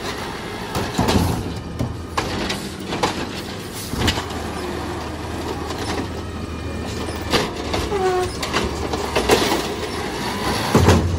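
Garbage truck's diesel engine running while its automated side arm lifts a wheeled trash cart, tips it into the hopper and lowers it again. Knocks and clatter from the cart and arm come through the engine sound, with a short squeak a little past halfway.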